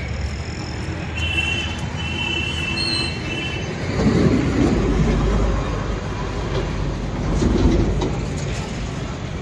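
Passing road vehicle: high squealing tones in the first few seconds, then a heavy low rumble that swells and fades through the middle.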